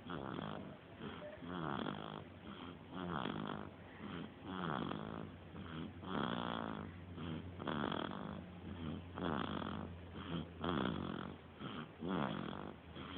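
A three-week-old baby snoring in his sleep, a raspy, pitched snore on each breath about every second and a half. The stuffy snore is put down to a cold by his mother.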